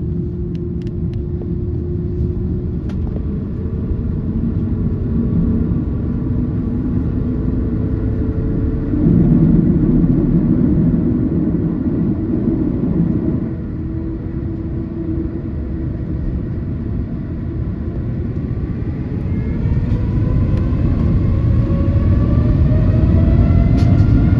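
Airbus A330-900neo's Rolls-Royce Trent 7000 engines and airframe rumbling in the cabin during the departure, with a louder stretch partway through. About 19 seconds in the engines begin to spool up, a whine climbing steadily in pitch as thrust is set for take-off.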